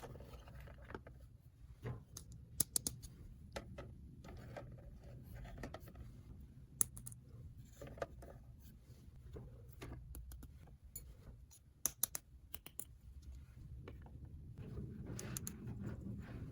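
Small toy pieces being handled: irregular light clicks and taps, with a few sharper clicks, over a faint low hum.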